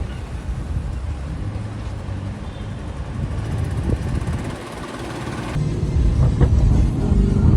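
Lamborghini Urus twin-turbo V8 exhaust rumbling as the SUV drives, getting clearly louder about five and a half seconds in.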